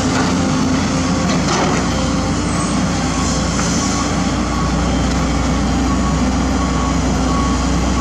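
JCB tracked excavator's diesel engine running steadily under load as it digs, a loud unbroken drone with a strong low hum.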